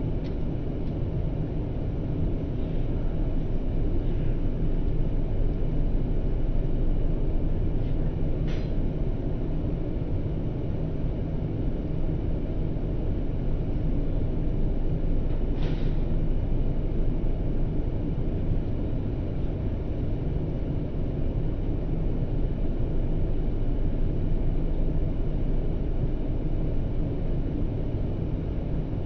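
Steady low rumble of an airliner's cabin noise in flight, with two faint short clicks about eight and sixteen seconds in.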